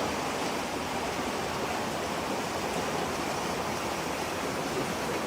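Floodwater rushing past in a steady, even roar of moving water.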